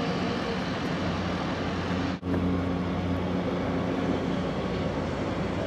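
Floatplane engine running steadily at high power on its takeoff run across the water, a constant drone with a low hum. There is a short break about two seconds in.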